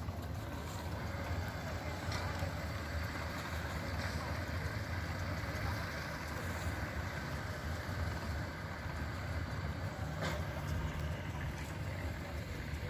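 Steady low outdoor rumble of wind buffeting the microphone, with a faint click about ten seconds in.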